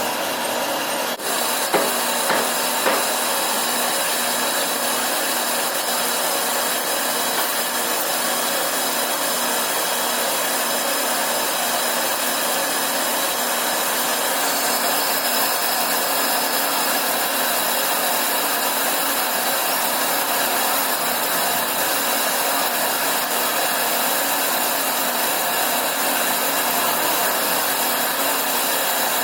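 Lathe running and turning a workpiece: a steady scraping hiss from the cutting tool over the machine's constant high whine, with a few knocks in the first few seconds.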